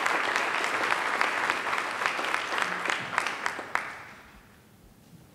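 Audience applause, many people clapping, that dies away about four seconds in.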